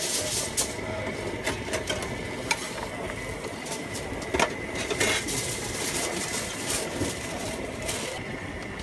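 Busy food-stall background: a steady hiss with a faint thin whine, broken by scattered clicks and knocks of utensils and food being handled about once a second.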